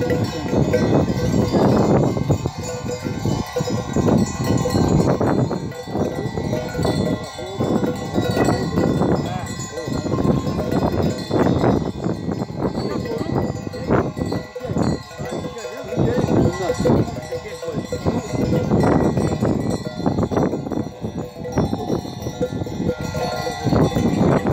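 Bells on a grazing flock of sheep clinking and ringing irregularly, over a low rushing noise that swells and fades.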